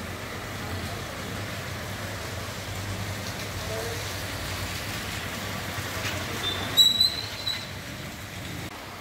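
Steady hiss of rain on a waterlogged street over a low traffic rumble. About seven seconds in, a brief high-pitched tone stands out as the loudest sound.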